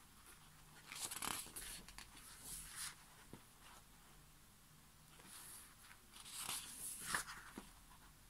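Pages of a thick album photobook turned by hand, the paper rustling and sliding in two quiet bursts, one near the start and one past the middle, as two pages are flipped over.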